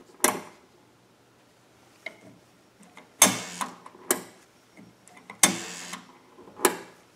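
Rotary telephone dial running back after each digit is dialed, a short run of quick ticks twice, with single sharp clicks from the dial and the rotary place-selector knob between digits.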